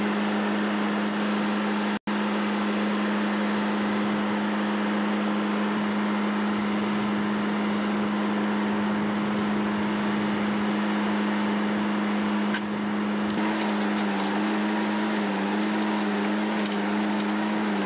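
A machine running with a steady, constant hum. The audio cuts out for an instant about two seconds in, and a second hum joins later with a slight wavering in pitch.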